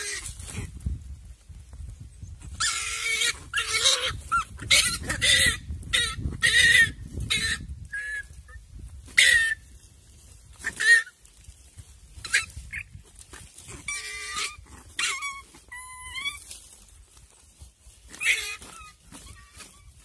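Fruit bat screeching in distress while caught in a Komodo dragon's jaws: a run of short, shrill, squealing cries, packed close together in the first half and more scattered later, some sliding in pitch. A low rumble runs under the first half.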